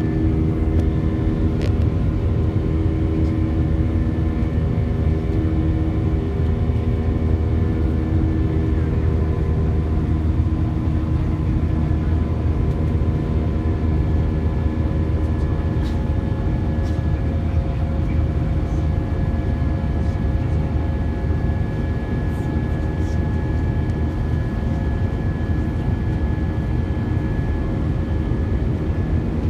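Airliner engines heard from inside the passenger cabin during takeoff: a steady, loud drone and low rumble with several constant engine tones.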